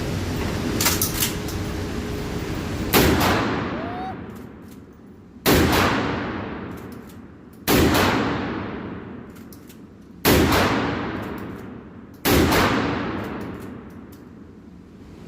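Kel-Tec KSG pump-action 12-gauge shotgun fired five times, about two to two and a half seconds apart. Each shot is followed by a long fading tail.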